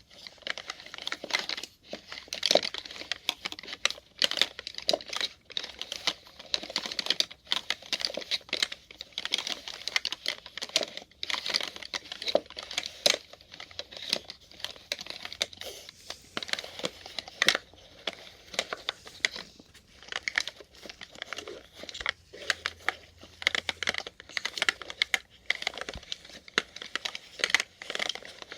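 Plastic syringes being rolled and knocked against each other: a dense, continuous clatter of light clicks.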